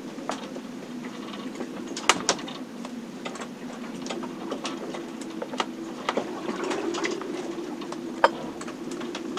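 Inside a sailboat during a storm: a steady low drone that wavers in pitch, with many scattered ticks, clicks and creaks from the boat's fittings. Two sharp knocks, about two seconds in and near the end, are the loudest.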